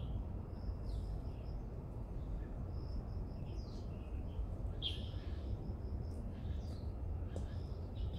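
Wild birds calling: short downward-sliding calls, the loudest about five seconds in, and quick runs of high pips, over a steady low rumble.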